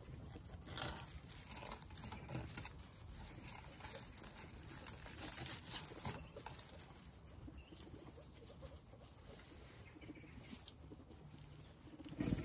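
A group of guinea pigs eating sliced carrots and fresh grass on straw: a faint, uneven patter of crunching, nibbling and rustling. A few louder clicks stand out, the sharpest about a second in and just before the end.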